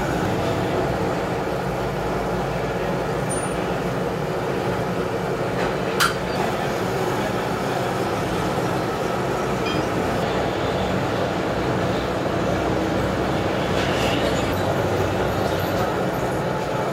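Gear hobbing machine running steadily, its hob cutting helical teeth into a green gear blank, with a constant mechanical drone and clatter. A single sharp click about six seconds in.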